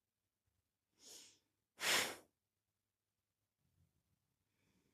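A person's breathing: a faint breath about a second in, then a short, louder breath of air half a second later, part of a paced breathing exercise.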